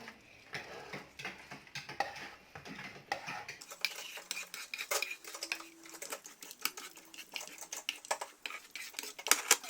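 A spoon stirring in a pan, scraping and clicking against the metal, as cashews, raisins and pistachios are turned in ghee. Near the end there is a quick run of louder clicks.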